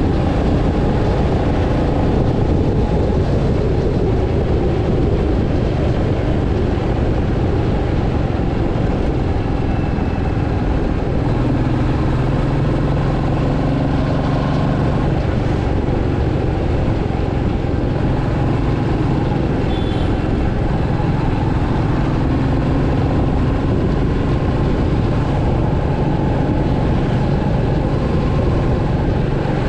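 Royal Enfield Meteor 350's 349 cc single-cylinder engine and exhaust running steadily while the motorcycle cruises, with a deep, even note that firms up slightly about eleven seconds in.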